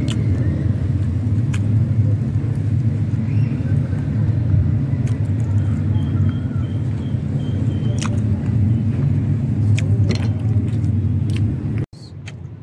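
A steady low rumble with a few light clicks over it; it breaks off suddenly about twelve seconds in.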